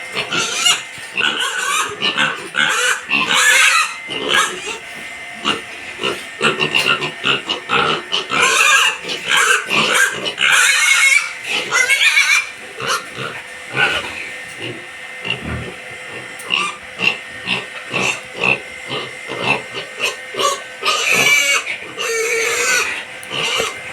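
A group of piglets grunting rapidly and continually, broken by several loud squeals, the longest about 8 to 12 seconds in and again near the end.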